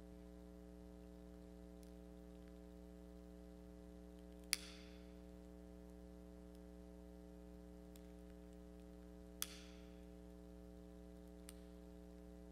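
Near silence with a steady electrical mains hum, broken by two sharp clicks about five seconds apart and a fainter click near the end.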